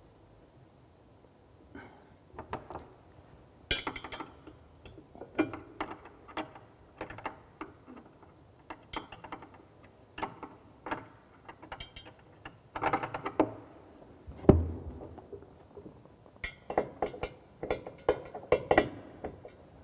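Ceramic wash basin and pedestal being handled and shifted into position: a run of light knocks and clinks in clusters, with one heavier thump about three-quarters of the way through.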